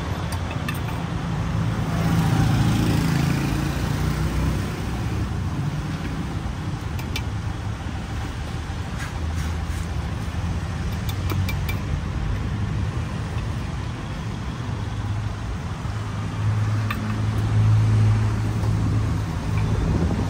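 Street traffic rumbling steadily, swelling louder as vehicles pass about two seconds in and again near the end, with a few faint clicks from the stall's knife and utensils.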